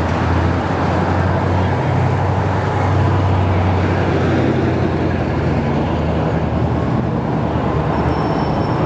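An old truck's engine running with a low rumble as it drives close past, loudest about three seconds in, over steady street traffic noise.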